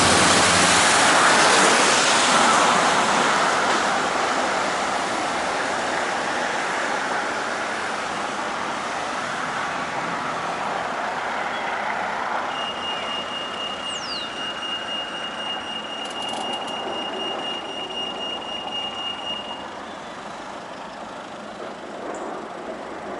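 Noise of passing road traffic, loudest at the start and slowly fading, then a UK pedestrian crossing's high-pitched beeping signal sounding for about seven seconds around the middle.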